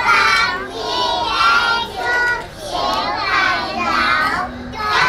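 A group of young children singing a Christmas carol together in short phrases with brief breaks between them.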